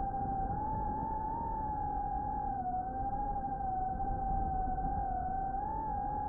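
FPV quadcopter's electric motors and propellers whining at a steady pitch that wavers gently up and down with the throttle.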